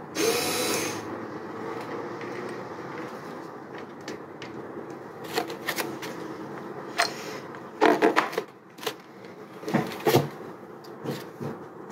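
A cordless screwdriver runs in a short burst of about a second at the start. After that come scattered sharp clicks and knocks of the tool being handled against a plastic window frame.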